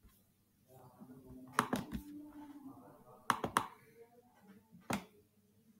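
Sharp clicks from a computer mouse, three in quick succession twice and then one more, over faint, indistinct speech.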